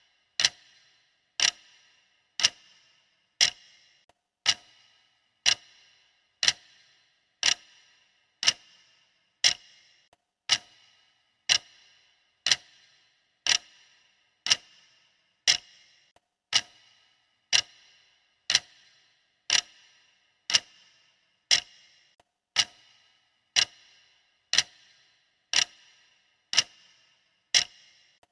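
Countdown timer's clock-style ticking, one sharp tick every second with a short ring after each, steady and even.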